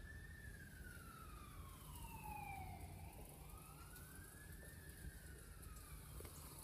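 Faint wailing siren of an emergency vehicle, its pitch sliding slowly down, up and down again, over a low steady hum.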